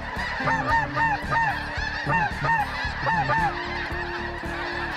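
A huge flock of snow geese calling overhead: a dense, constant chorus of overlapping honks, with louder individual calls standing out every fraction of a second as the flock circles above the decoys.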